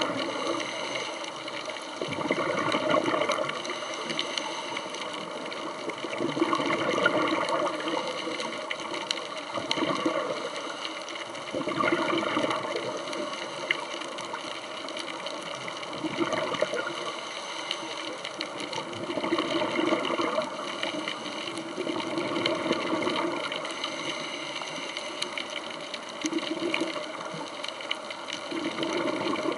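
Underwater sound: a steady rush of water noise that swells and fades every few seconds, over a faint steady high-pitched hum.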